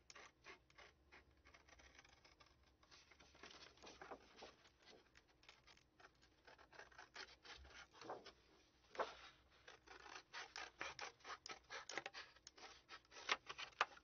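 Scissors snipping through a manila file folder: a run of faint, irregular snips, coming closer together in the second half.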